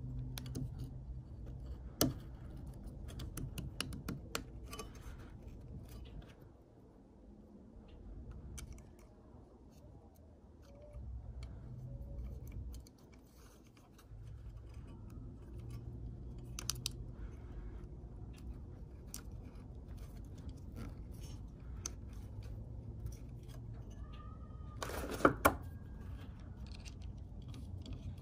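Small plastic and metal clicks and rattles as a fuel pump is handled and fitted onto its bracket and its wiring connector is pressed on, over a low background rumble. Near the end comes a louder, sharp double click.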